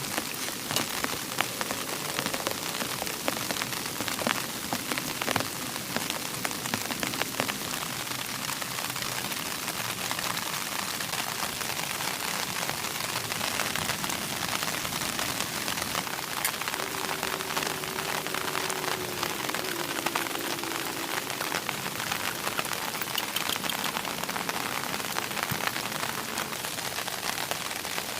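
Steady rain falling, with many separate drop hits ticking through an even hiss.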